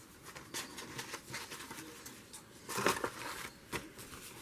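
Soft paper rustling and rubbing as hands press and smooth a freshly glued sheet of heavy paper onto a journal page, with a louder rustle about three seconds in.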